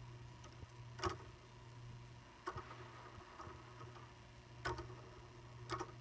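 A handmade toy ceiling fan built from plastic construction pieces is handled and turned by hand, giving four short, sharp plastic clicks at uneven intervals over a faint, steady low hum.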